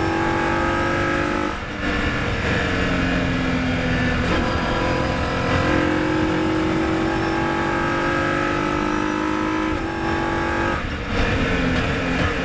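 Formula 3000 single-seater's engine running hard at high revs, heard from the car's onboard camera. The note drifts slowly down between short breaks about a second and a half in, around four seconds, and near the end.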